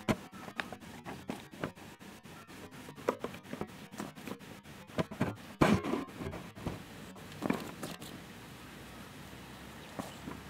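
Puppies playing on grass: scattered short knocks and rustles, with a louder clatter about six seconds in as a dog noses among the plastic balls in a paddling pool.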